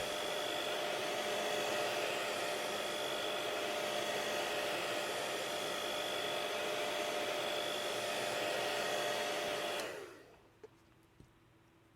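Hot-air blower running steadily with a constant whine, heating the phone's back glass to soften its adhesive; it switches off about ten seconds in, followed by a couple of faint clicks.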